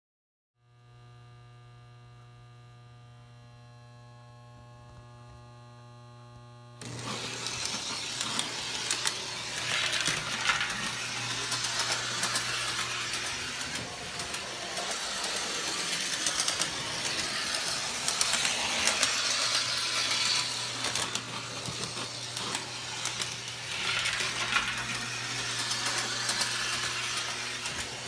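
A steady electrical hum. About seven seconds in, a model trolley's K-Line motor truck starts running on O gauge three-rail track, a continuous whirring and rattling with many small clicks from the wheels on the rails. It swells louder twice, around ten and twenty-four seconds in.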